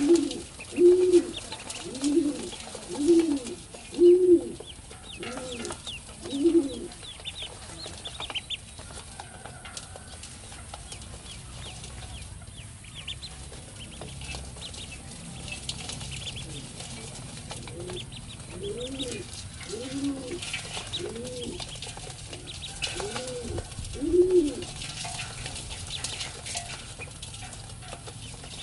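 Birds calling: a low bird call repeated in short rise-and-fall notes about once a second, in two runs, one at the start and one about two-thirds through, over many faint, high, short peeps from ducklings.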